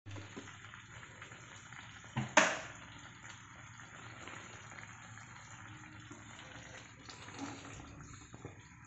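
Spiced tuna roe curry simmering and bubbling in a small non-stick pan, stirred with a wooden spatula. A sharp knock about two seconds in is the loudest sound.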